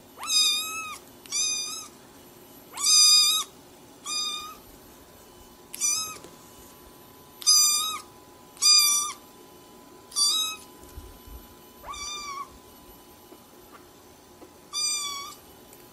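A cat meowing over and over: about ten high-pitched calls, each roughly half a second long, one every second or two.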